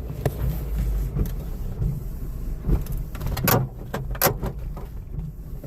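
Car engine idling unevenly on a freshly installed junkyard fuel pump, with a few sharp clicks or pops over the running, the loudest two about three and a half and four seconds in. The engine is low on fuel and stalls shortly afterwards.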